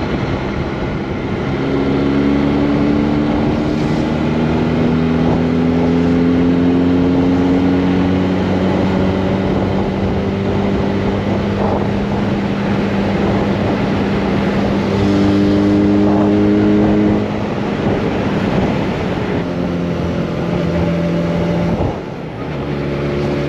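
A motorcycle engine under way with a rush of wind noise: the engine note climbs slowly as the bike accelerates, holds steady, then steps lower, with a brief drop in engine sound near the end as the throttle is closed.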